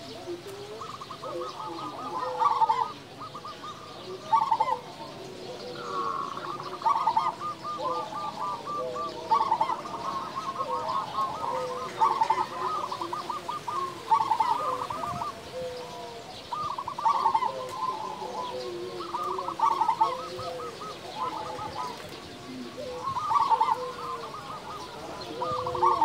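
Zebra dove (perkutut) cooing: repeated phrases of rapid, rolling staccato coos, one after another with short gaps, with lower, softer coo notes underneath.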